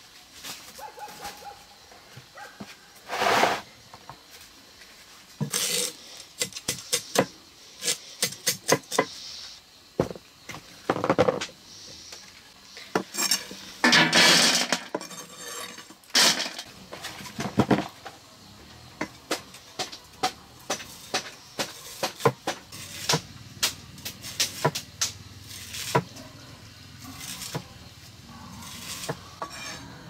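Kitchen utensils and pots clinking and knocking in irregular sharp clicks, with a longer noisy stretch about 14 seconds in.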